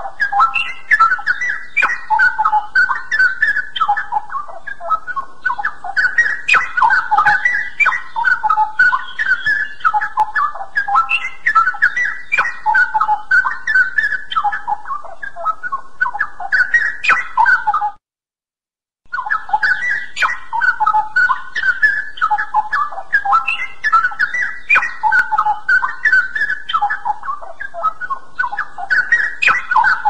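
Straw-headed bulbul (cucak rawa) singing continuously in full voice, a dense run of rapid whistled phrases, with about a second of silence some 18 seconds in.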